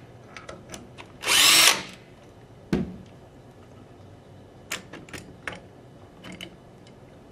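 Cordless drill driver spinning briefly, about a second in, backing out a screw from a paintball marker's receiver. A sharp knock and a few light clicks follow.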